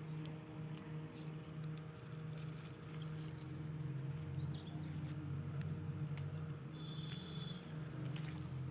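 A few short, falling bird chirps over a steady low hum, with scattered light clicks and a brief high, steady trill about seven seconds in.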